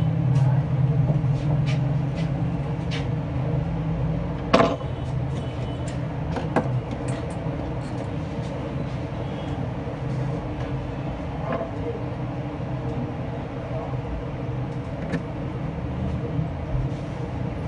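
Scattered clicks and light knocks of tweezers and hands on an opened laptop's plastic case and parts, the sharpest about four and a half seconds in, over a steady low drone of background noise that is stronger in the first few seconds.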